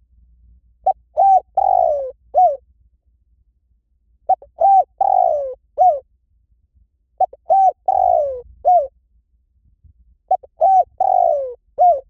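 Spotted dove cooing: four identical phrases about three seconds apart, each a short coo, a second coo, a long falling croo and a final coo.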